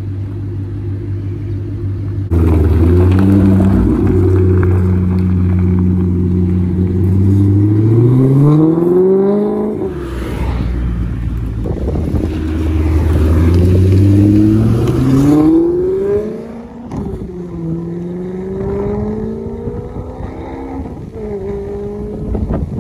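2007 Maserati Quattroporte Sport GT's 4.2-litre V8 exhaust, idling steadily at first, then loud and rising in pitch in several long climbs under revving and acceleration, each broken off by a sudden drop.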